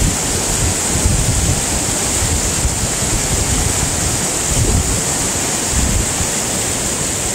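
Fast-flowing stream water rushing in a steady hiss, with wind buffeting the microphone in low gusts.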